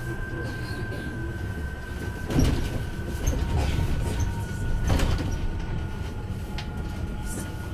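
Heuliez GX337 electric bus running, heard from inside the cabin: a low rumble under a steady high whine that drifts slightly lower, with two short knocks or rattles, one about two and a half seconds in and one about five seconds in.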